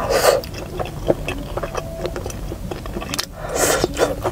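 Close-up chewing of a mouthful of spicy stir-fried food, with small wet mouth clicks. Twice there is a breathy puff of air, the second one near the end blown out through pursed lips.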